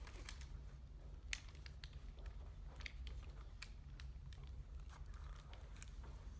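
Quiet eating and handling noises: scattered faint clicks and light rustles over a steady low hum.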